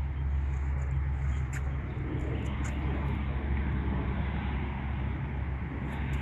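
Steady low outdoor rumble, like distant traffic and wind on the microphone, with a few faint ticks.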